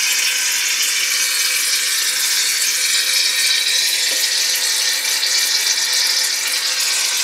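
Aerosol can of shaving cream spraying foam into a plastic bowl: a loud, steady hiss.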